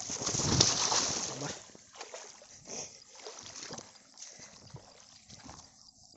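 Footsteps splashing through shallow water on the edge of a flooded rice paddy. A loud splash fills the first second and a half, followed by quieter, scattered footsteps in the mud.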